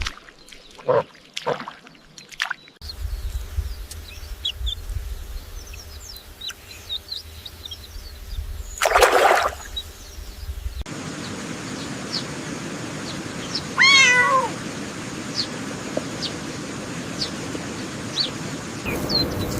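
Animal calls in a run of short separate clips. There are scattered short high chirps, one loud call about nine seconds in, and a wavering call with several pitches stacked together about fourteen seconds in.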